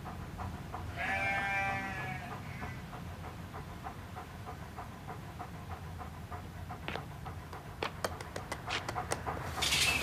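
A sheep bleats once, about a second in: a long, wavering bleat. Under it runs a steady light ticking, about three ticks a second, and a short rush of noise comes near the end.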